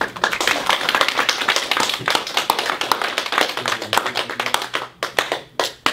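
Small audience applauding: dense hand clapping starts suddenly, then thins out to a few last scattered claps near the end.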